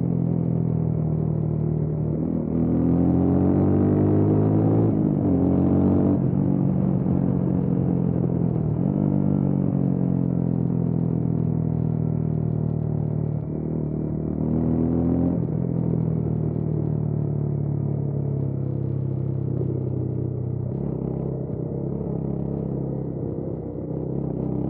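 Motorcycle engine under way on the road, its pitch climbing and dropping back several times as it accelerates and shifts through the gears.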